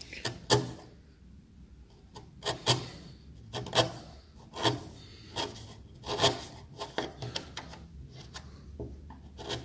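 Wood chisel pushed by hand, paring and scraping out the waste between the drilled holes of a euro cylinder keyhole in a timber door. It makes about a dozen short, irregular scraping strokes.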